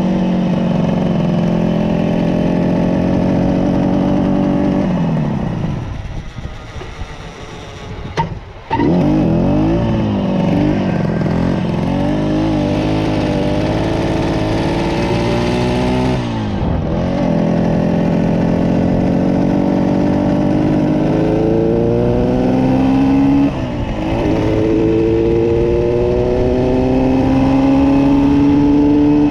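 Yamaha YDS3's two-stroke twin engine running under way, then dying about five seconds in, its note sinking away for a few seconds before it suddenly catches again. It then pulls up through the gears, the pitch rising in each gear, with two dips where it shifts.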